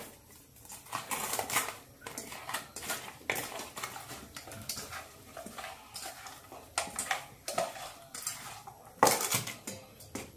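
Stainless steel pot clattering and scraping on the counter in irregular knocks as fish pieces are mixed in it by hand, with the loudest clank about nine seconds in.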